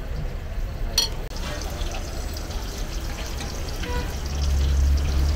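Pieces of liver sizzling and crackling in oil on a large flat iron frying pan, after a sharp click about a second in. A low rumble grows louder near the end.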